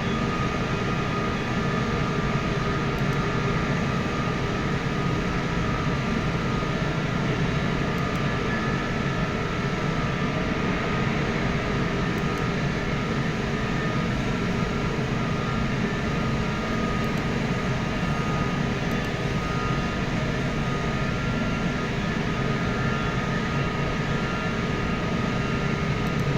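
Industrial reheating furnace running: a steady, unbroken mechanical noise with a few steady whining tones above it.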